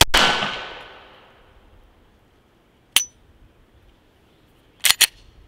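A single 9 mm shot from a Glock 19X pistol, with a ringing tail lasting about a second. About three seconds later comes a sharp metallic click, and near the end two quick clacks as the slide is worked to clear a malfunction, which the shooter puts down to an improper grip.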